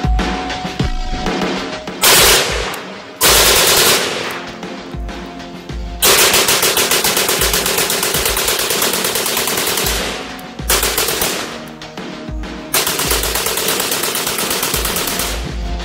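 Romanian WASR-10/63 AK-pattern rifle bump-fired in rapid strings of shots that sound like full-auto fire. A short burst comes about two seconds in, another about a second later, then a long run of about four seconds and two more strings near the end, with music playing under them.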